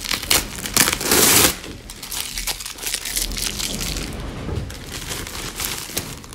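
Plastic courier mailer bag crinkling and rustling as it is handled and opened by hand, with a loud burst of crinkling about a second in.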